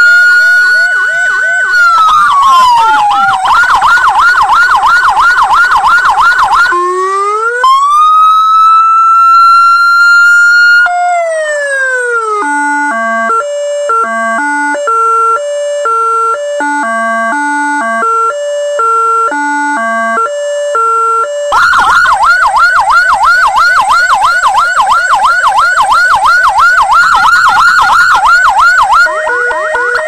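PS-V9 12-tone electronic vehicle siren, played through its horn speakers, switching between tones: a high wail that holds, falls and changes to a fast yelp. It then gives a second rising and falling wail, about nine seconds of stepped notes like a short tune, a fast yelp again, and a two-tone stepped pattern near the end.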